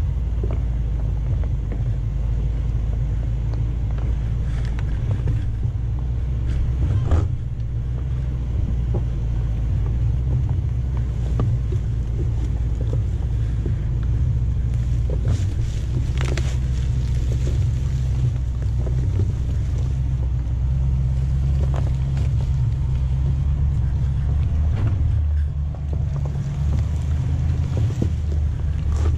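Range Rover Sport crawling uphill in low range: a steady low rumble of the engine and drivetrain, with scattered sharp clicks and cracks as the tyres roll over rocks and dry leaves.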